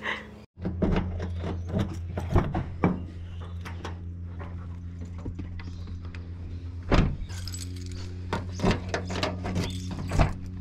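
A bunch of keys jangling and clinking, with sharp clicks and a couple of louder clunks as a key goes into the door lock of a Toyota ute. A steady low hum runs underneath.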